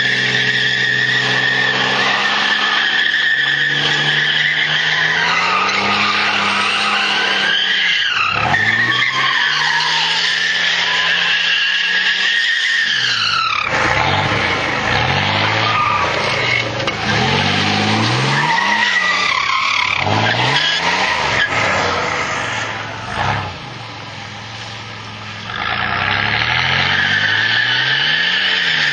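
Car spinning its rear tyres in a burnout, with a steady high tyre squeal over an engine held at high revs. In the second half the engine note rises and falls again and again as the throttle is worked. It dips briefly quieter about three-quarters of the way through, then picks back up.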